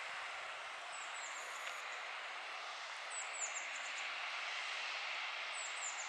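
John Deere 6230 tractor's engine running steadily under load as it pulls a reversible plough through the soil. A small bird sings a short, high phrase of falling notes about every two and a half seconds, three times.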